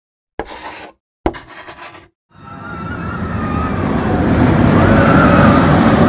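Intro sound effects: two short, sharp hits that each cut off abruptly, then a rushing, rumbling noise that swells steadily from about two seconds in, like something passing at speed, with a faint whistling tone gliding on top.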